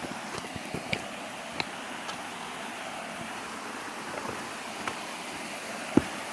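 Steady rush of a small waterfall, with a few scattered sharp clicks and knocks, the loudest near the end.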